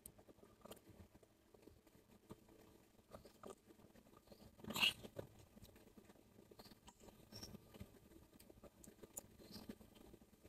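Faint eating sounds: quiet chewing and small clicks, with one short, louder tap or smack about five seconds in.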